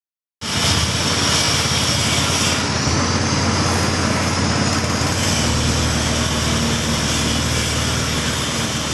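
Motor-driven peanut shelling machine running steadily: a low hum under a dense, even noise, cutting in suddenly about half a second in.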